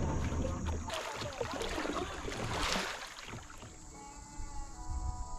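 Water splashing and gurgling around a kayak for about two seconds, then dying away.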